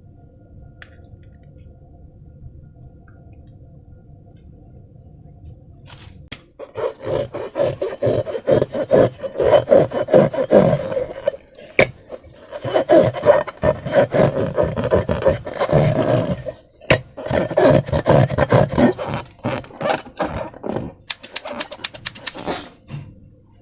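Slime being squished and kneaded by hand: loud, irregular wet squelching and crackling that starts after a few seconds of faint steady hum, with short pauses. It ends in a quick run of small clicks.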